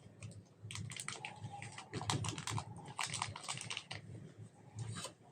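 Slime being kneaded and stretched by hand, giving off rapid sticky clicks and crackles in clusters, densest from about one to four seconds in, with another short run near the end.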